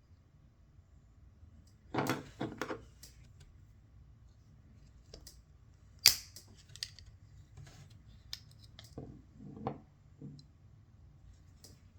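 Pocket knives being handled: a couple of dull knocks about two seconds in, a sharp metallic click around six seconds, then softer taps and rubbing.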